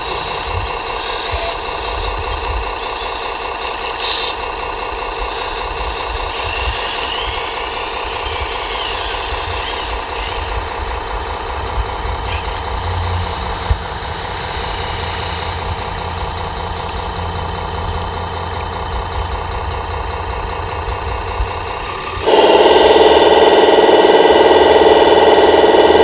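Radio-controlled hydraulic excavator running steadily while it digs and loads, a constant engine-like drone with brief shifts in pitch and a few small clicks. Near the end a louder, different machine drone takes over.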